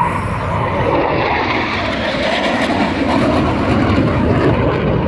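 Engine noise of a display aircraft flying past, a steady noise that holds its level throughout.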